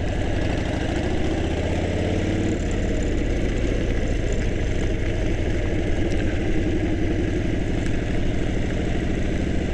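Harley-Davidson V-twin motorcycle engine running at low road speed, heard from inside the rider's helmet, its pitch climbing over the first two or three seconds and then holding steady.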